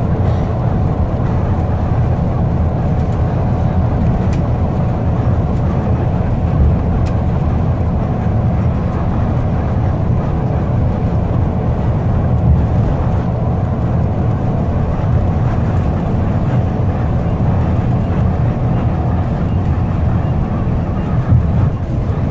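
School bus running at highway speed, heard from inside the cabin: a steady low rumble of engine and road noise, with a faint steady whine above it.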